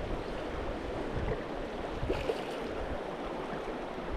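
Steady rushing of a back-country river flowing over stones.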